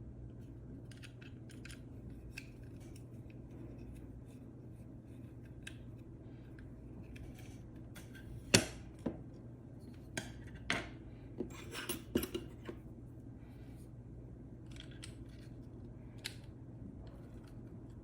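Scattered light clicks and taps of small hard parts and tools being handled, with a cluster of sharper clicks a little past halfway, the first of them the loudest. A steady low hum sits underneath.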